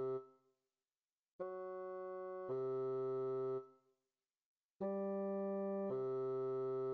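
Synthesized keyboard chords with flat, steady tones that start abruptly and stop with a short fade. They come in pairs of about a second each, with short silences between the pairs.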